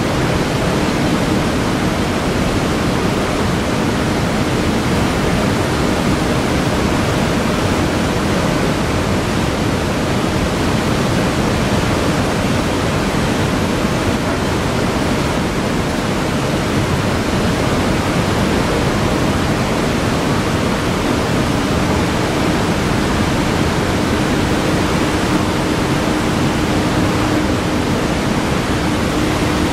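Water rushing and churning through a dam spillway bay as a timber stop log is lifted out, a loud steady roar. A faint steady hum fades out in the first second and returns about two thirds of the way in.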